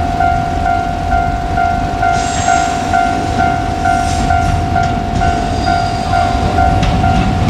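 Level crossing alarm ringing steadily at about two strokes a second, over the low rumble of a KiHa 200 diesel railcar running past. A few sharp wheel clacks over the rail joints come in the second half.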